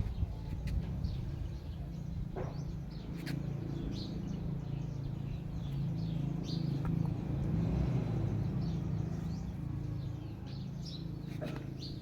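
Scattered short, high bird-like chirps over a steady low hum.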